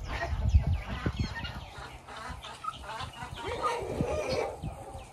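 Domestic chickens clucking and calling, with many short high chirps scattered over them and a low rumble in the first second or so.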